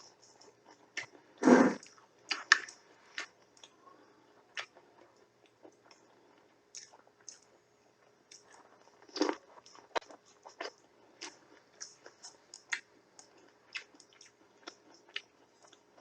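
A person eating: chewing food with many short mouth clicks and smacks, and two louder sudden noises about a second and a half in and about nine seconds in.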